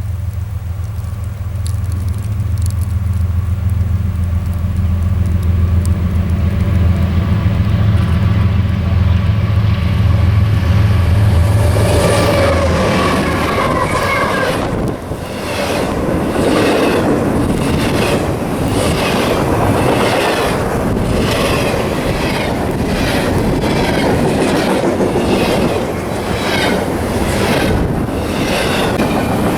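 Diesel locomotive passing with a deep engine drone, followed from about twelve seconds in by its train's wheels rolling by with a regular clickety-clack over the rail joints.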